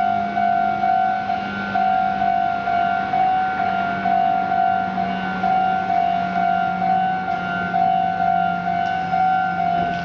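Japanese railway level-crossing alarm ringing its repeated 'kan-kan' electronic bell at an even pace, a loud two-note tone struck over and over, signalling that a train is approaching and the crossing is closed.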